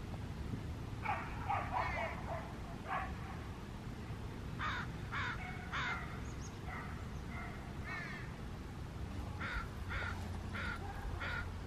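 Crows cawing: short, harsh calls repeated in runs of three or four, over a steady low background noise.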